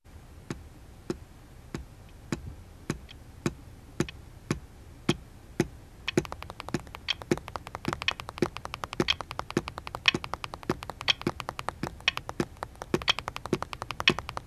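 A wall clock ticking, a little under two ticks a second. About six seconds in, a faster, uneven tapping joins in over the ticks.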